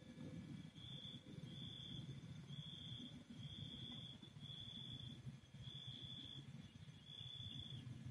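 A cricket chirping: a high, thin, pure-toned chirp about half a second long, repeated about once a second.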